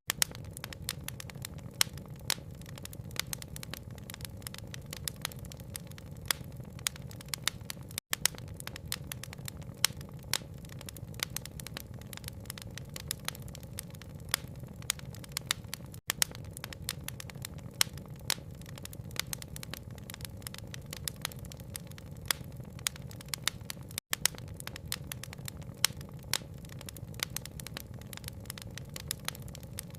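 Wood fire crackling with frequent sharp pops over a steady low rumble, mixed with rain. The sound cuts out for an instant about every eight seconds, where the recording loops.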